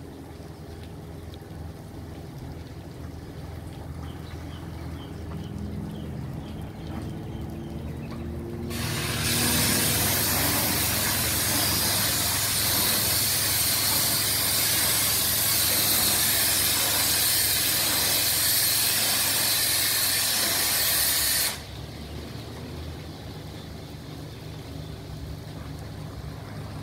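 Pressure washer spraying: the high-pressure jet hisses loudly from about nine seconds in and cuts off sharply about twelve seconds later. Before and after the spray the machine's motor hums steadily.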